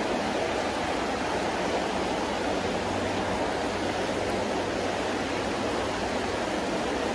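Shallow trout creek rushing steadily over a rocky riffle: an even, unbroken rush of water.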